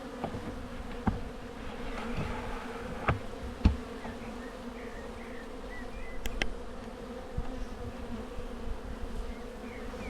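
Honey bee colony buzzing steadily from the open hive, a low even hum. A few sharp knocks break in during the first half, the loudest about a third of the way in.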